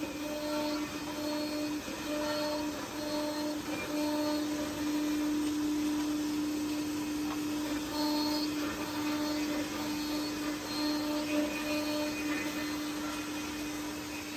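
A CNC woodworking drilling and milling machine running, its spindle motors giving a steady whine. The whine dips briefly a few times in the first four seconds, and its higher overtones come and go.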